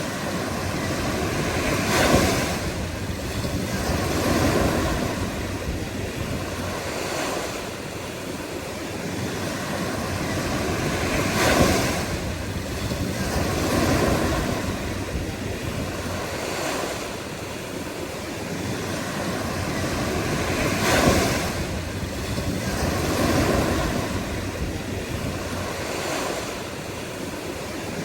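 Ocean waves breaking on the shore in a steady cycle: a sharp break about every nine to ten seconds, three times, each followed by a softer, longer wash, over continuous surf.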